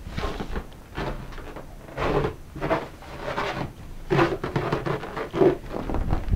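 Footsteps crunching and squeaking in snow, roughly one or two steps a second.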